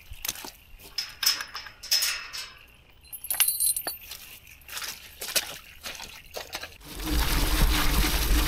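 Steel mesh farm gate being opened and shut: scattered clinks and clanks of its chain latch and frame, some ringing briefly. About seven seconds in, a steady rumble with a low hum starts as the Spika e-bike rides off along a grassy dirt track.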